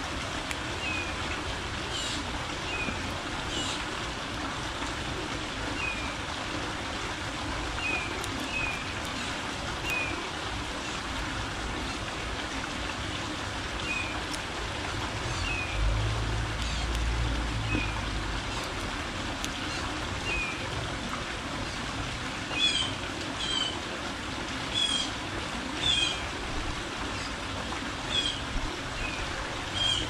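Birds chirping at a backyard feeder: short, thin chirps every second or two, then louder, sharp chip notes repeating through the last several seconds, over a steady background hiss. A brief low rumble comes about halfway through.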